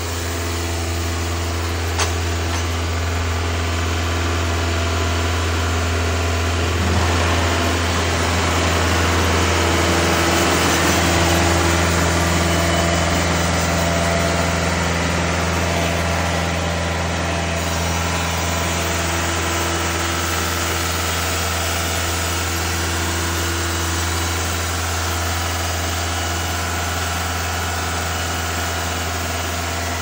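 Cook's AC 3667T band sawmill running steadily, its band blade sawing through an oak cant. It swells a little louder about seven seconds in, with a single sharp tick about two seconds in.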